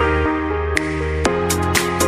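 Electronic background music with sustained synth chords, a bass line and a steady beat of sharp percussion hits.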